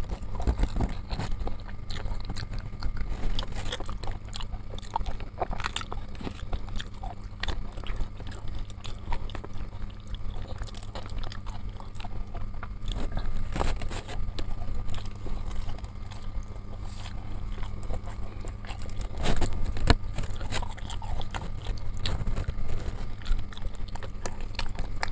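Close-up chewing and biting of chicken satay: irregular wet mouth clicks and smacks, with a steady low hum underneath.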